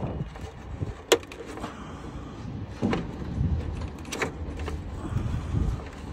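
A few sharp plastic clicks and fumbling of hands pushing wire connectors onto the terminals of a dashboard rocker switch, over a low rumble. The sharpest click comes about a second in.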